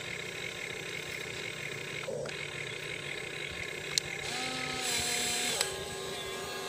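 Huina radio-controlled excavator working its arm and bucket in sand: steady electric motor whine, changing pitch a little past four seconds in and again near the end as different functions run, with one sharp click about four seconds in.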